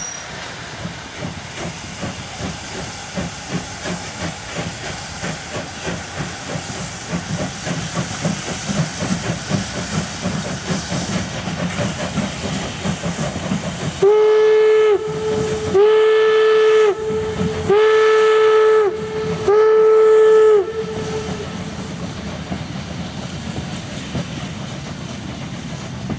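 Steam locomotive working, a steady rhythm of exhaust beats with hissing steam. About halfway through, its steam whistle gives four loud blasts of one tone, each about a second long.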